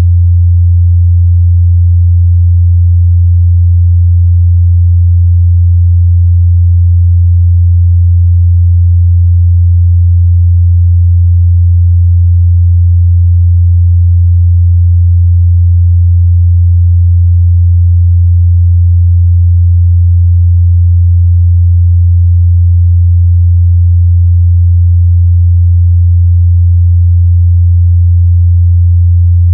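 A steady, loud 87 Hz sine-wave test tone, a pure low hum held at one pitch and level, used to check a speaker's or headphone's bass response.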